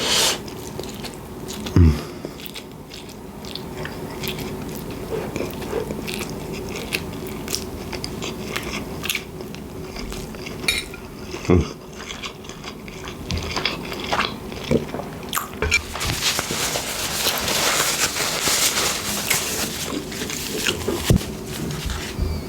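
Close-miked eating of spaghetti bolognese: chewing and wet mouth sounds with scattered small clicks, growing louder for a few seconds about two-thirds of the way in.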